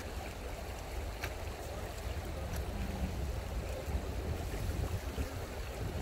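Flowing stream water, a steady rushing with a low rumble underneath.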